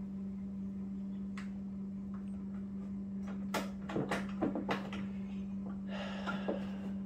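A steady low hum, with scattered light clicks and knocks, a cluster of them about four seconds in, and a short rustling scrape near the end.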